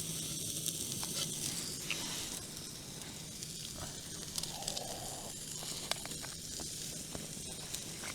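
Sirloin steak sizzling on a small gas-fired backpacking grill: a steady hiss with scattered small pops and crackles.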